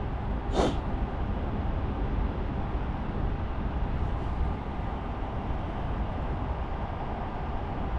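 Steady outdoor background noise with a low rumble, and a brief hiss about half a second in.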